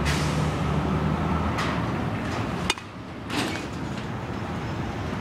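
A sharp crack of a baseball bat hitting a machine-pitched ball about two and a half seconds in, with a couple of softer knocks around it over a steady low hum.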